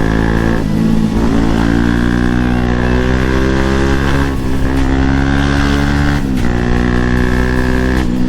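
Bajaj Pulsar NS200's single-cylinder engine running under way, its pitch held or slowly rising, with short breaks about four times as the rider shifts gear.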